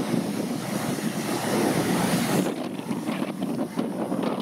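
Wind buffeting the microphone on a boat at sea, over the wash of waves and water against the hull.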